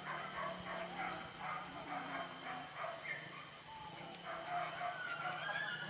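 Pack of boar-hunting dogs barking, a quick run of barks for the first few seconds, then a drawn-out rising yelp near the end.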